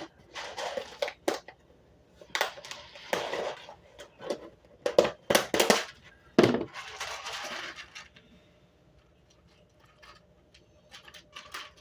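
Small screws and a plastic electronics housing being handled at close range: a series of rustling, scraping bursts with sharp clicks, then only a few light clicks over the last few seconds.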